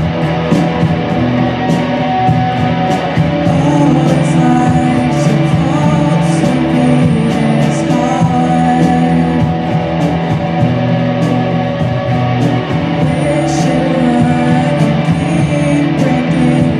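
Rock band playing a song: electric guitar chords held over drums, with cymbal hits at a steady beat.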